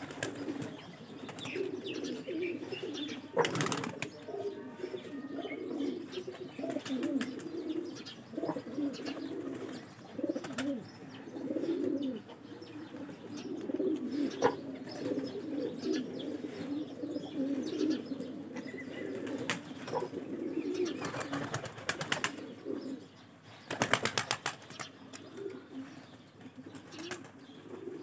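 A flock of domestic pigeons cooing continuously, many voices overlapping. Short bursts of wing flapping come a few seconds in and again near the end.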